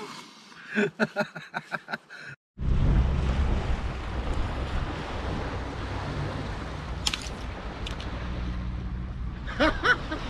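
Wind buffeting the microphone over waves breaking on a beach, a loud, steady rumbling hiss that cuts in suddenly about two and a half seconds in after a moment of silence.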